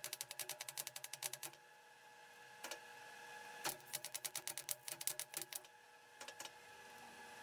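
Rapid, even mechanical clicking, about ten clicks a second, in bursts of a second or so with short pauses between, over a faint steady hum.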